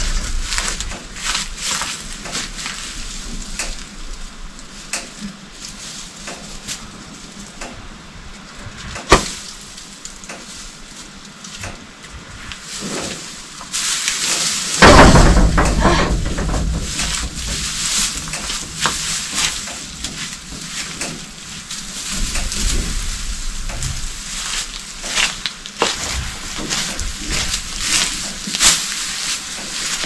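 Dry hay crackling and rustling as a bale is cut and pulled apart by hand. There is a sharp click about nine seconds in and a louder rustling burst around fifteen seconds.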